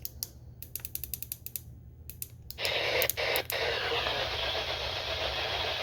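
A quick run of sharp clicks, about ten a second at their fastest, from buttons on a weather radio receiver being pressed. About two and a half seconds in, a loud steady hiss of radio static starts and runs on, broken twice briefly.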